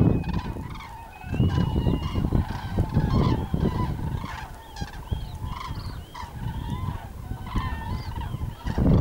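A flock of common cranes calling in flight overhead: many overlapping rolling, trumpeting calls, repeated throughout. A low rumble comes and goes underneath, loudest in the first two seconds.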